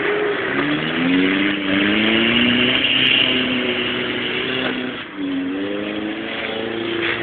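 Off-road 4x4's engine revving as it accelerates across the field, its pitch climbing, dropping briefly about five seconds in, then climbing again.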